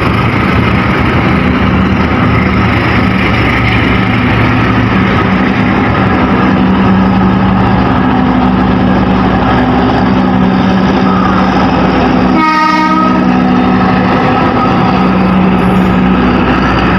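Diesel-hauled passenger train passing close by: a steady locomotive engine drone over the rolling noise of wheels on rail.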